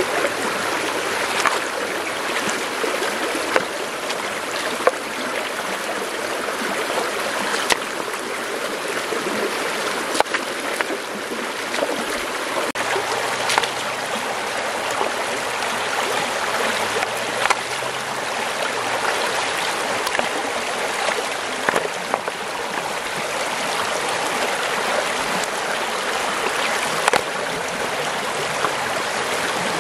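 Shallow rocky stream rushing over stones, a steady hiss of running water, with a scattering of short sharp knocks as hands shift stones in the water around a bamboo fish trap.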